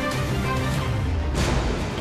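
Dramatic background music: low sustained notes, with a swell that peaks about one and a half seconds in and then fades.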